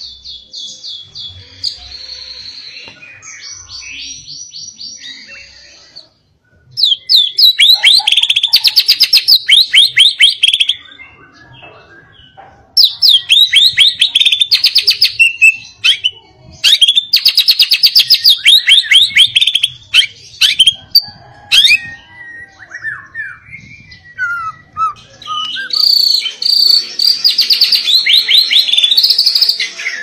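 White-rumped shama singing in the insistent, fired-up (ngotot) style used to provoke other shamas into song: loud phrases of fast, rapidly repeated sharp notes in four bursts of a few seconds each, with softer, sparser notes between them. The sound cuts out for a moment about six seconds in.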